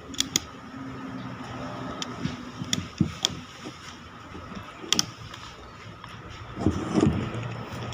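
Scattered sharp clicks and taps of an angle grinder and its small parts being handled during a carbon-brush change, with a heavier clatter about seven seconds in, over a steady faint background hum.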